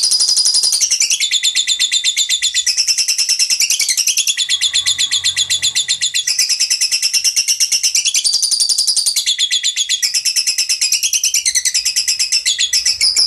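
Lovebird giving its long 'ngekek' song: an unbroken, rapid rattle of sharp high chirps, roughly ten a second, whose pitch steps up and down every second or so.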